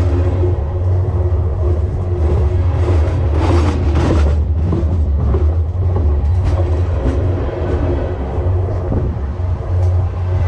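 Freight train cars rolling past close at rail level: a steady, heavy low rumble with a humming tone, wheels clicking over the rail, and a louder rushing surge a third of the way in.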